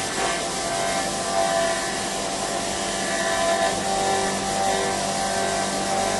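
A CNC machine running steadily, a continuous mechanical noise with several steady tones through it.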